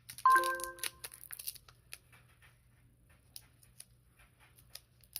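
Product packaging being handled: a short, loud squeak about a quarter-second in, followed by light crinkling and scattered clicks.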